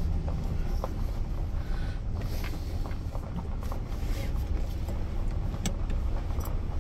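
Pickup truck driving along a dirt road, heard from inside the cab: a steady low rumble of engine and tyres, with a scattering of small rattles and knocks from bumps in the road.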